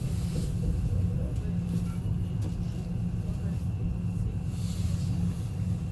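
Inside an ES2G Lastochka electric train car while it is moving: a steady low running rumble under a faint steady whine, with brief swells of hiss.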